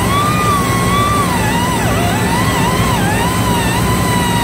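Steady low machinery rumble with a thin constant whine, and over it a smoothly sliding, wavering melody line from background music.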